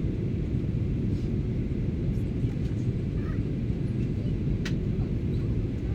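Steady low roar inside the cabin of a Boeing 737-800 in flight: engine and airflow noise heard from a window seat. A faint click comes a little before five seconds in.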